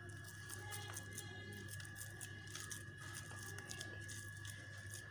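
Wooden spatula faintly scraping and pressing a moist, crumbly besan-and-sugar-syrup mixture in a non-stick pan, with scattered soft ticks. Underneath runs a steady low hum and a thin high whine.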